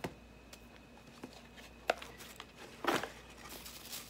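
Light handling noises of mail and packaging: a few sharp taps and clicks and a brief rustle about three seconds in.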